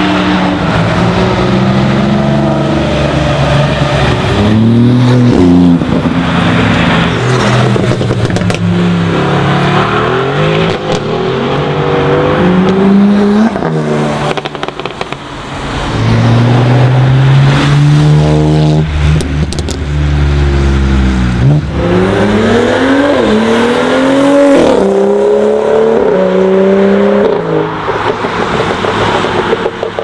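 Sports car engines accelerating hard one after another, each note rising through the revs and dropping back at every gear change. A loud, deep rumble sits in the middle, and a cluster of rising shifts comes near the end.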